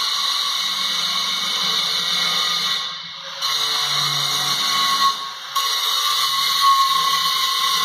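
Electric power tool running with a steady high whine, easing off briefly about three seconds in.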